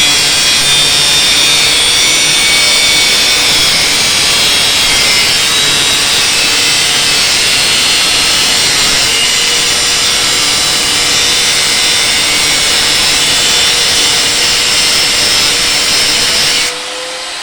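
Angle grinder running steadily under load with a high whine, working material for a chulha. It cuts off abruptly near the end.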